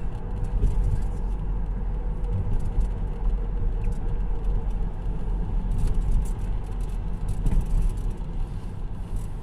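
Steady low rumble of engine and tyre noise heard inside the cabin of a moving diesel car.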